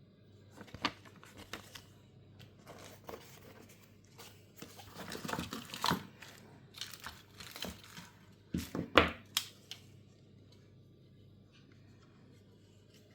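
Handling noise: rustling and crinkling with bits of tearing and scattered sharp clicks, the loudest cluster about nine seconds in.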